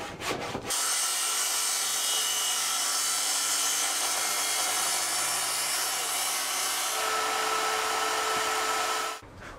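Table saw ripping a long length of recycled timber: a loud, steady cutting noise that changes tone about seven seconds in and stops suddenly near the end. It opens with a few short knocks of timber being handled.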